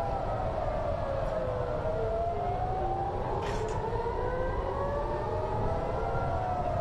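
Several air-raid sirens wailing at once, each rising and falling slowly and out of step with the others, over a steady low rumble. They are the warning of an incoming missile attack. A short hiss comes about halfway through.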